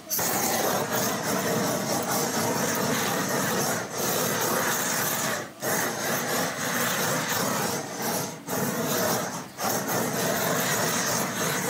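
Handheld gas blowtorch flaming cubes of beef on a grill rack: a loud, steady rushing hiss of the flame. It starts abruptly and dips briefly a few times.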